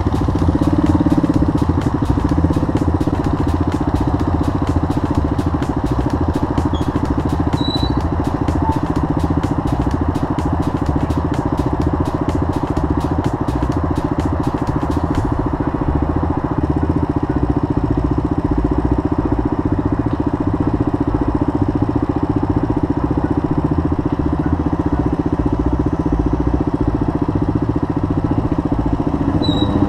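Single-cylinder Suzuki DR dual-sport motorcycle engine running steadily as the bike rides along a dirt trail.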